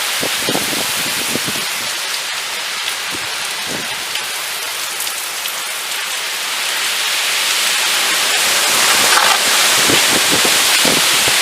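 Moderate to heavy rain falling steadily and hitting surfaces, with scattered heavier drops splashing; the downpour grows louder about two-thirds of the way through.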